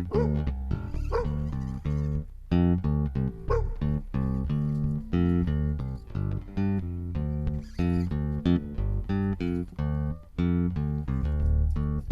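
Background music with plucked guitar and bass notes in a steady rhythm.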